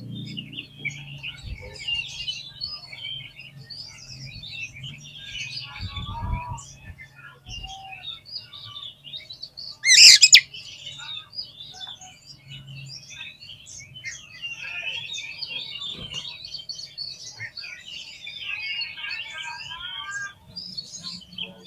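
Oriental magpie-robin (kacer) singing a continuous run of quick chirps and whistled phrases, with one loud brief burst about ten seconds in.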